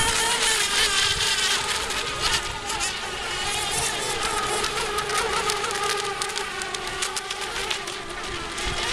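Several radio-controlled racing boats' motors whining together, their high buzzing pitches wavering up and down as the boats race around the course, over the hiss of the hulls on the water.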